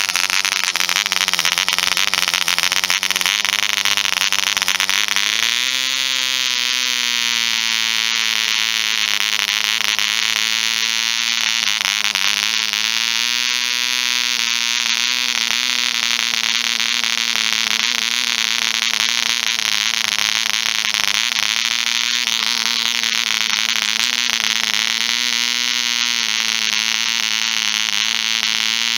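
Half-size 0.47 cc replica of the ED Bee Mk 1 two-stroke model diesel engine running on a test stand with its propeller spinning: a loud, steady high buzz. About five or six seconds in its pitch steps up a little, then holds with small wavers.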